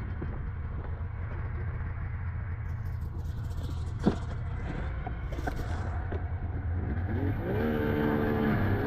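Snowmobile engine idling with a steady low rumble, a single click about four seconds in, then the engine revs up and holds a higher, steady pitch near the end.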